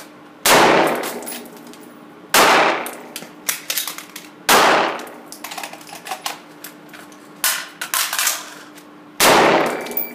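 Four gunshots from a carbine and a pistol, spread over the few seconds and echoing in an indoor range. Between the shots come lighter metallic clicks and clatter as stoppages are cleared and magazines changed.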